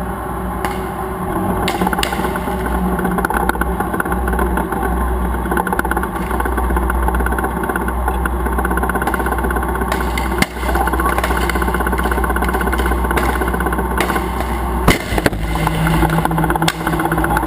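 Battle tank engine running with a rapid, steady clatter, heard up close from the tank's own hull. A sharp bang about fifteen seconds in.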